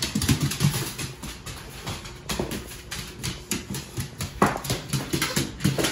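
A pit bull's claws clicking and scrabbling irregularly on a hardwood floor as it plays with a toy, with one brief higher-pitched squeal about four and a half seconds in.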